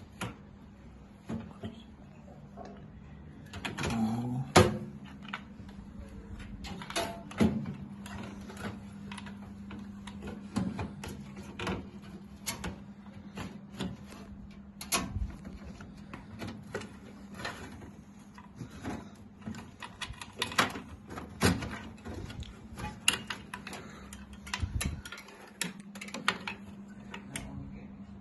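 Irregular clicks and light knocks of hardware being handled as a motherboard is fitted into a PC case, over a steady low hum.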